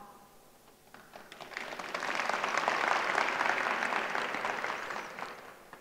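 Audience applause: it starts about a second in, swells, holds steady, then fades away near the end.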